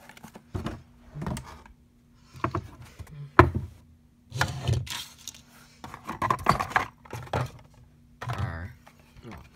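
Hand rummaging in a cardboard box of wrapped items: irregular rustling, knocks and clatters. A faint steady electrical hum runs underneath.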